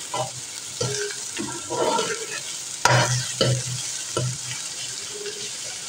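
Chopped onions sizzling in hot mustard oil in an aluminium kadhai as they are sautéed. A steel ladle stirs them, scraping and knocking against the pan several times, with the sharpest knock about three seconds in.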